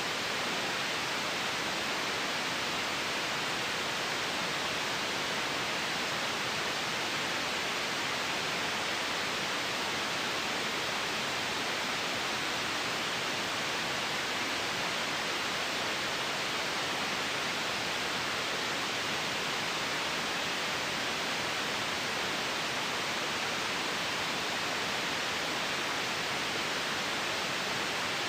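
Steady electronic white noise: an even, unchanging hiss, brightest in the treble, with no rise, fall or break.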